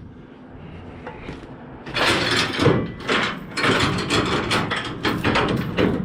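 Cargo strap being repositioned in a flatbed trailer's stake pocket: from about two seconds in, a busy run of scraping, rustling and knocking as the webbing and its hardware are worked against the trailer's rail.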